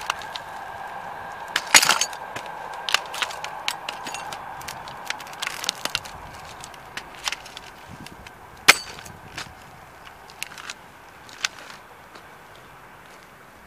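A collectible model toy car cracking and snapping under a leather rigger work boot, with grit crunching underfoot: a string of sharp irregular cracks, the loudest about two seconds in and near nine seconds, thinning out after about ten seconds.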